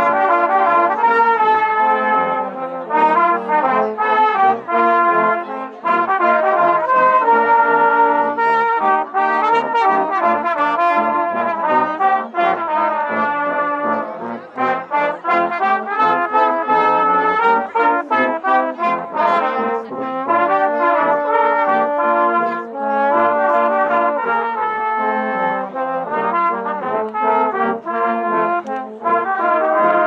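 Brass music: a tune on brass instruments such as trumpet and trombone, played in a string of held notes that change every second or so.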